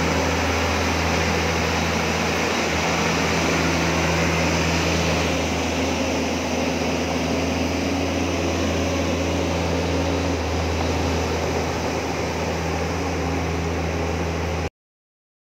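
JCB JS200 excavator's diesel engine running with a steady, deep drone. The sound cuts off abruptly near the end.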